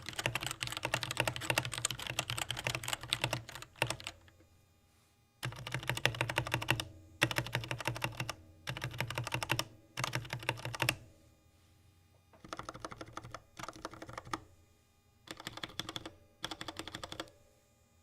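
DREVO Gramr V2 TE mechanical keyboard with TTC Black linear switches being typed on: rapid continuous keystrokes for about four seconds, a pause, then a run of short bursts of key presses, the last few quieter.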